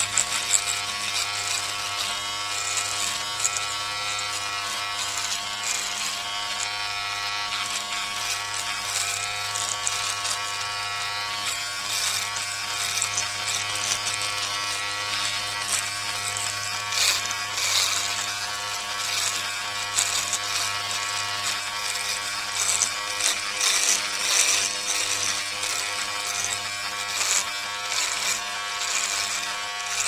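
Electric shaver running continuously with a steady buzzing hum. It has louder, scratchier rasping patches in the second half.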